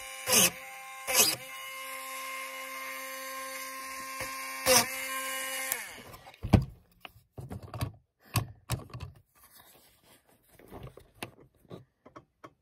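A Dremel rotary tool with a small ball-shaped globe bit running with a steady high whine, with three brief louder bursts as the bit is touched into a countersink in a wooden fingerboard deck to round it off. The motor switches off about six seconds in, and scattered clicks and knocks of the tool and deck being handled follow.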